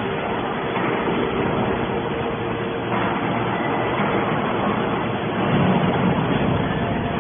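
Hydraulic scrap-metal baler running: a steady mechanical drone with a faint hum, swelling louder for about a second near six seconds in.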